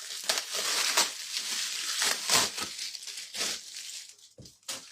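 Plastic packaging crinkling and tearing as an item is unwrapped by hand, a dense irregular crackle that dies away about four seconds in.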